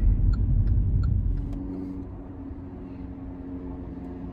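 Car cabin road noise and engine rumble while driving in freeway traffic, with the turn signal ticking about three times a second. About a second and a half in, the rumble drops away to a quieter, steady low hum.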